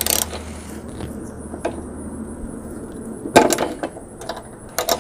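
A few sharp clicks and clatters of hands handling parts on a push mower's engine, the loudest about three and a half seconds in, over a faint steady low hum.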